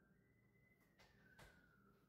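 Near silence: faint room tone, with a faint wavering high tone and two soft clicks about a second in.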